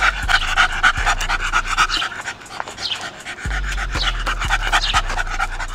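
A dog panting rapidly and steadily close by, in quick, even breaths.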